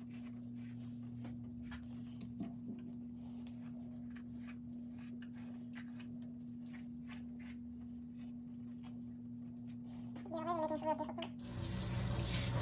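Repeated short scratchy strokes of a small hand brush through a wet Yorkshire terrier's fur. Near the end a kitchen faucet comes on, and water runs into a stainless steel sink and over the dog.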